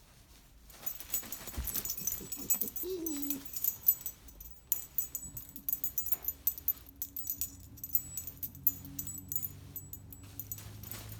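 Pets at play: rapid jingling and clicking throughout, a short wavering whine about three seconds in, and a low steady rumble from about halfway through.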